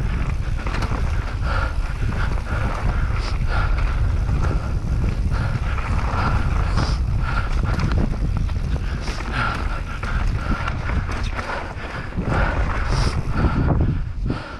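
Mountain bike riding a rough downhill trail at speed: wind buffets the microphone, and the tyres and frame clatter over dirt and rock with frequent knocks and rattles.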